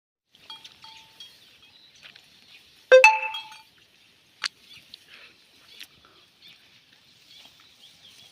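A single loud clink about three seconds in, ringing briefly at a few steady pitches, with a shorter sharp tick about a second and a half later, over a faint steady high-pitched chirring.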